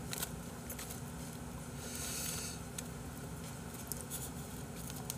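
Faint clicks of chopsticks and soft rustling as food is picked up and laid onto a hand-held bossam wrap, over a steady background hum.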